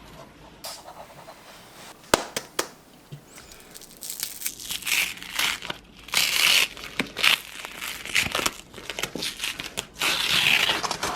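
Plastic packaging crinkling and rustling as it is handled and torn open, with a few sharp clicks about two seconds in and louder bursts of crinkling from about four seconds on.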